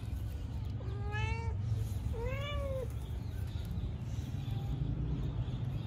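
A cat meowing twice: two short calls, the first rising a little, the second arching up and back down.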